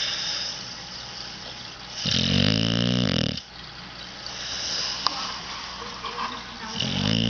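Pit bull snoring in her sleep: one pitched snore lasting over a second about two seconds in, and another starting near the end, with breathy air in between.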